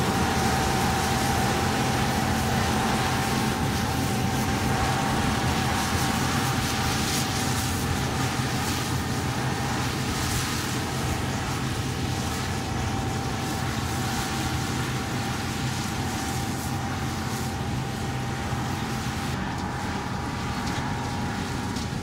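Old John Deere combine running while harvesting soybeans: a steady engine drone with a constant whine from the threshing machinery, easing slightly near the end.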